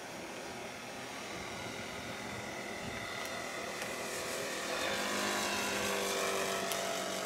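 Propeller plane in flight, its engine droning steadily and growing louder toward the end, with the pitch bending as it draws near.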